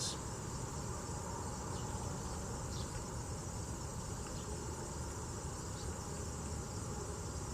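Insects trilling steadily in a continuous high-pitched band, over a steady low background rumble.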